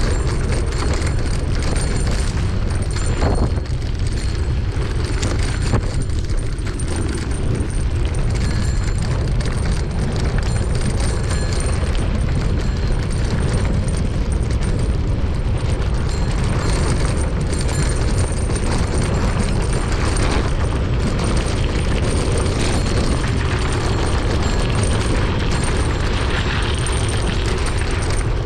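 Wind buffeting on the microphone of a camera carried on a moving mountain bike, a steady loud low rumble with scattered faint knocks and rattles from the bike.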